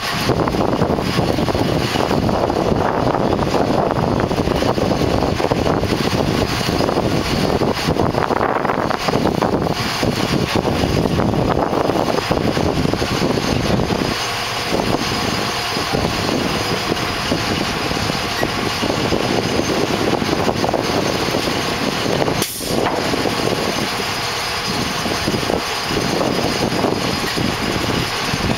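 Diesel engines of truck-mounted mobile cranes running steadily, driving the cranes' hydraulics as they lift a heavy load. One sharp knock about three quarters of the way through.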